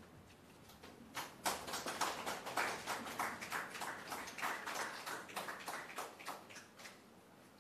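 A small audience applauding with scattered hand claps. The clapping starts about a second in and dies away near the end.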